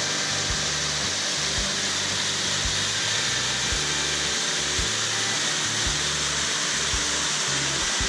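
Small waterfall pouring over rock into a pool: a steady rushing hiss of falling water. Background music with a low beat about once a second runs faintly underneath.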